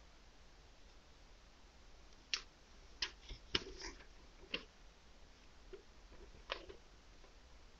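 Glossy paper leaflet being folded and handled: a handful of short crinkles and taps, starting about two seconds in and bunched around the middle, with a couple more near the end.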